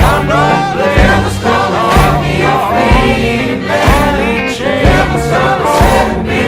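Background music: a song with a group of voices singing over a steady beat of about one strike a second.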